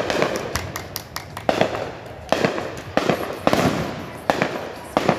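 Aerial fireworks bursting in quick succession: about a dozen sharp bangs, roughly two a second, each trailing off into crackle and rumble.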